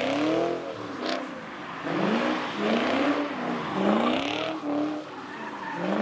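Car engine revving up and down several times while held in place, building revs for a burnout.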